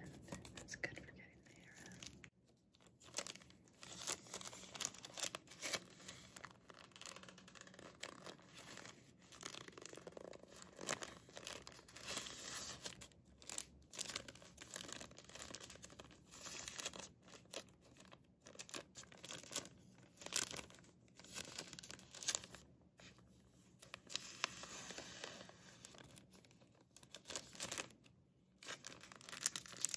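Thin clear plastic sleeve crinkling and rustling in the hands as it is worked open around a plastic tail comb, in irregular crackles.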